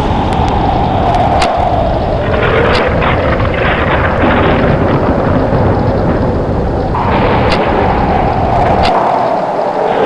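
Tornado wind sound effect: a loud, continuous low rumble of wind with a howling tone that slides down in pitch, then starts again higher about seven seconds in. A few sharp cracks are heard over it.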